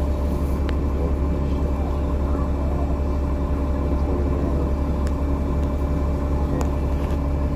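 Bus engine running, heard inside the passenger cabin: a steady low rumble with a steady hum over it and a few light clicks.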